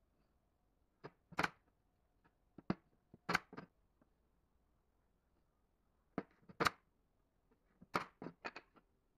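Wooden slats knocking and clacking against each other and the tabletop as they are set down and stacked into a square frame: short sharp knocks, some in quick pairs, in little clusters every couple of seconds.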